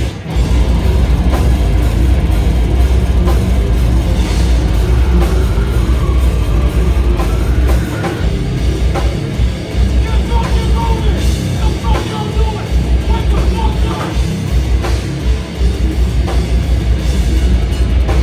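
Slam death metal band playing loud and live, with a pounding drum kit and heavy low end. About eight seconds in, the low end turns choppy and stop-start, in short repeated hits, before filling back in near the end.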